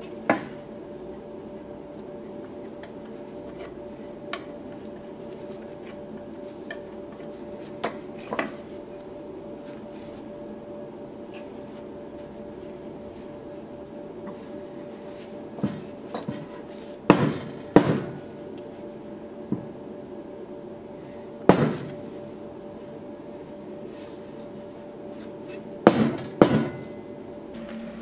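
Irregular sharp knocks of hand tools working at a workbench: single knocks, a cluster of three or four in the middle, and a pair near the end, over a steady hum.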